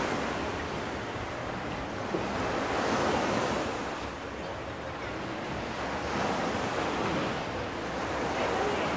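Small waves breaking and washing up on a sandy beach, the surf swelling and fading about every three seconds.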